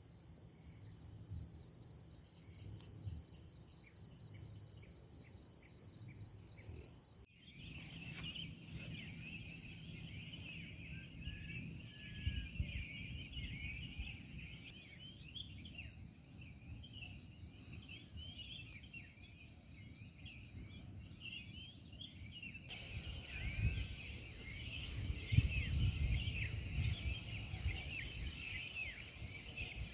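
Insects trilling in a steady, high, pulsing chorus, with a busier layer of short chirps after an abrupt cut about seven seconds in. Gusty low wind rumble on the microphone grows stronger near the end.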